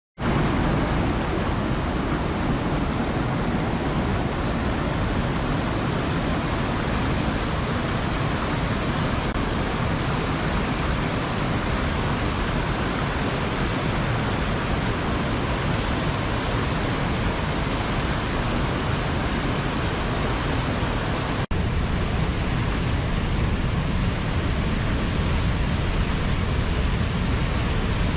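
Waterfall, a steady, dense rush of falling water with a deep low rumble, broken once by a momentary dropout about two-thirds of the way through.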